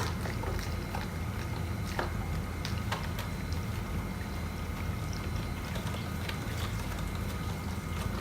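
Light clicks and taps of screws and hand tools being handled, a sharper click at the very start, over a steady low hum.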